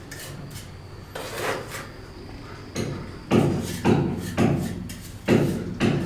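Hammer blows, struck at a steady pace of about two a second from a little past halfway, after a few scattered knocks.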